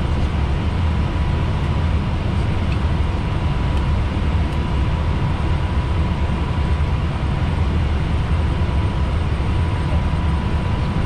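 Steady in-flight cockpit noise of an Airbus A320neo: a loud, even, low rush of air around the flight deck, with a faint steady high tone running through it.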